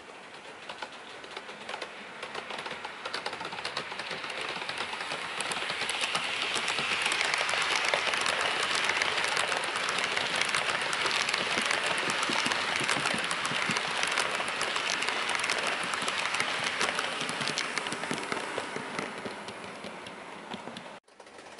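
Model train of Virgin coaches hauled by a Bachmann OO-gauge Class 90 running past, its wheels rattling and clicking along the track. The sound builds as the train approaches, is loudest as it passes, and fades as it moves away before cutting off suddenly near the end.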